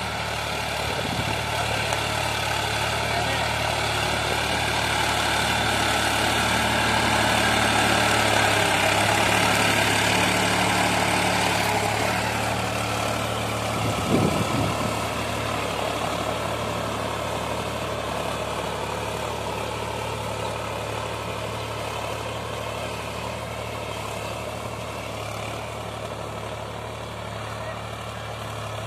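Solis Yanmar 4WD tractor's diesel engine running steadily under load while pulling a plough through the soil. It grows louder as the tractor comes close, then slowly fades as it moves away, with a brief knock about halfway through.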